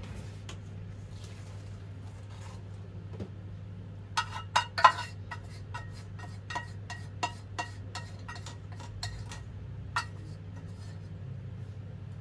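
A spatula knocking and scraping against a saucepan and a stainless steel bowl while boiled azuki beans are scraped out of the pot: a run of about a dozen sharp, partly ringing clinks starting about four seconds in and lasting some six seconds, the first few loudest.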